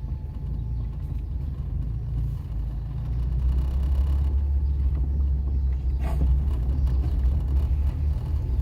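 Car driving, a steady low rumble of engine and road noise heard from inside the cabin, growing a little louder partway through, with one brief knock about six seconds in.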